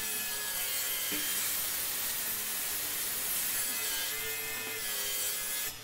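Table saw cutting through a wooden board, a steady noisy cut that stops suddenly near the end.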